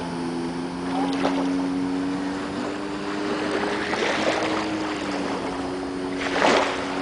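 Jet ski engine running at a steady speed out on the water, its drone dipping slightly in pitch midway. Bursts of rushing noise come about four seconds and about six and a half seconds in.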